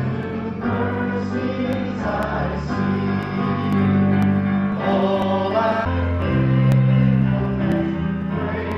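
Music with a choir singing over held bass notes that change every few seconds.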